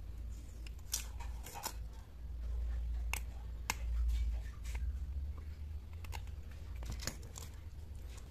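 Protective paper film being peeled by hand off a small acrylic sheet: a few short crackles and sharp ticks, scattered irregularly over a steady low hum.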